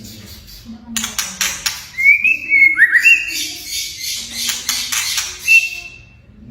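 White-rumped shama (murai batu) singing: rapid, dry crackling rattle notes ('kretekan') mixed with clear whistled notes that slide up and down. The whistles come about two seconds in and again near the end.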